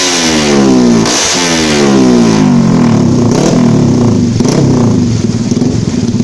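Yamaha Y15ZR's 150 cc single-cylinder four-stroke engine through an SC Project aftermarket exhaust, the throttle blipped so the revs jump and fall away, then settling into a steady idle about two and a half seconds in.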